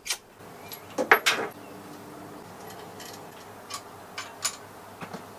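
Light metallic clicks and knocks from a new chrome pull-out faucet and its metal hose being handled out of the box, about six scattered taps over a low steady background hum.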